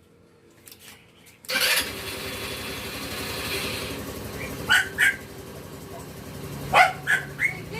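Motorstar Easyride 150N motorcycle engine starting up suddenly about a second and a half in, then idling steadily. A dog barks a few times over it in the second half.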